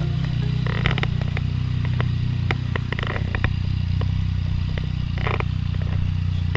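Yamaha MT-09's three-cylinder engine idling steadily, with scattered sharp clicks and a few short rasps over it.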